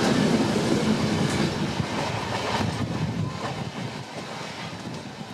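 Train running on the rails, a steady rumble of wheels with a few clicks, growing gradually quieter.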